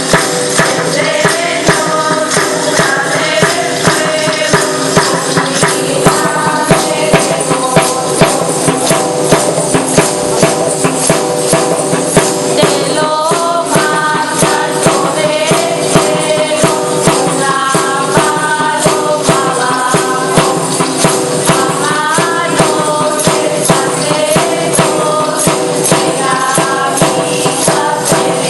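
Asturian folk music: a melody over a steady held drone, with a tambourine keeping a regular beat.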